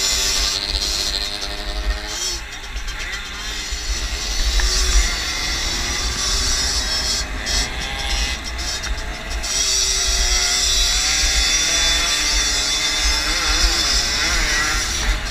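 50cc field bike engine revving up and down as it is ridden hard, its pitch rising and falling with the throttle, with heavy wind buffeting on the onboard microphone.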